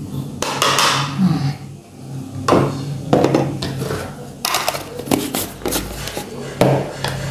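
Metal spoon and wire whisk clinking and scraping against a stainless steel mixing bowl of flour-and-milk batter, in several short irregular bursts, over a steady low hum.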